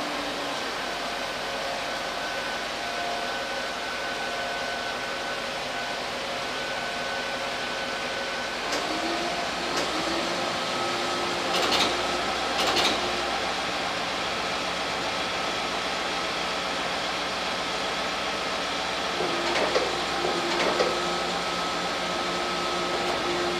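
Large all-terrain mobile crane's engine running steadily, a constant mechanical drone with a whining tone that steps up in pitch about nine seconds in. A few short knocks or clatters sound midway and again later.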